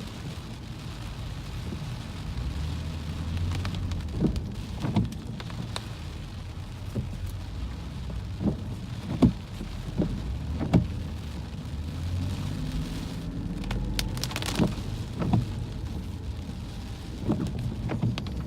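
Rain falling on a moving car, heard from inside the cabin over the low steady hum of the engine and tyres, with scattered sharp taps.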